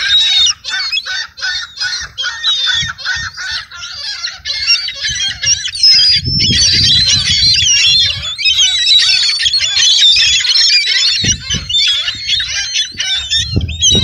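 A flock of gulls calling over one another. A quick, regular run of calls gives way about six seconds in to a denser chorus of overlapping calls. Low thuds come now and then.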